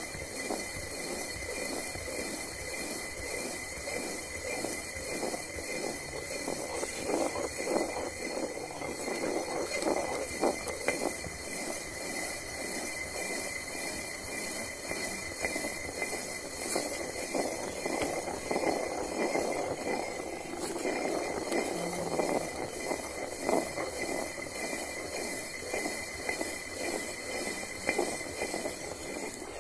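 Hand-turned stone quern grinding rice into flour: the heavy upper millstone is spun on the lower one, giving a continuous rough stone-on-stone grinding rumble.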